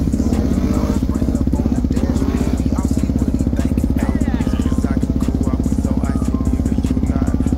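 Can-Am Outlander 570 ATV's V-twin engine running steadily under load, with an even pulsing, as the quad pushes through a deep mud-and-water trench.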